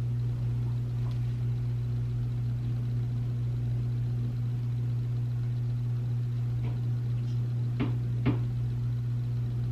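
Steady low hum, with two light knocks about half a second apart near the end.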